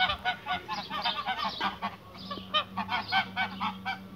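Several white domestic geese honking: short calls repeated about four times a second, with a brief lull about two seconds in.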